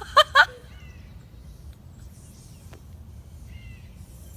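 A dog giving two quick high yips right at the start, then a few faint bird chirps.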